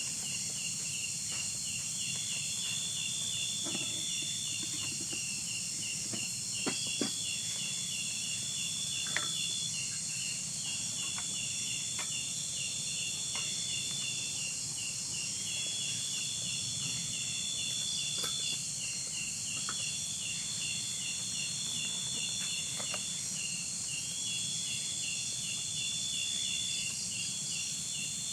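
Chorus of insects such as crickets: a rapid pulsing trill runs on steadily, a longer, slightly higher call comes back about every four seconds, and a steady high hiss lies underneath. A few faint knocks come through.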